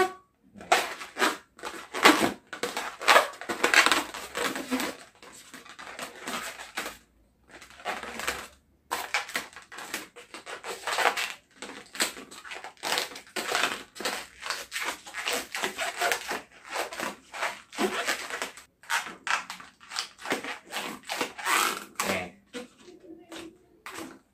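Long latex modelling balloons squeaking and rubbing against each other and the hands as they are twisted and bent, in irregular squeaks that go on throughout.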